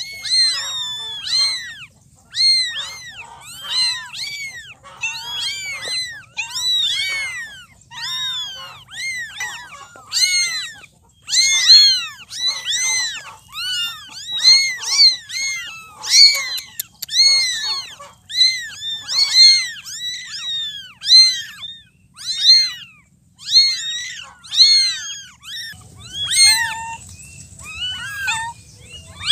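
Kittens meowing over and over: short, high-pitched mews that rise and fall in pitch, one or two a second and sometimes overlapping.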